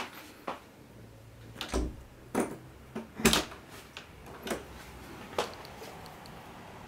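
A handful of separate knocks and clicks in a small room, irregularly spaced, the loudest about three seconds in, over a faint low hum.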